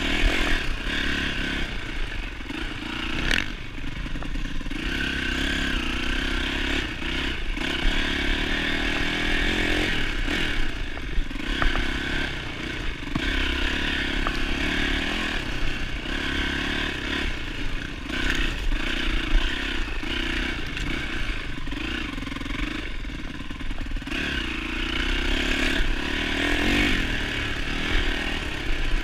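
2007 Yamaha YZ450F's four-stroke single-cylinder engine running under a trail ride, its note rising and falling every few seconds as the throttle opens and closes, with a sharp knock about three seconds in.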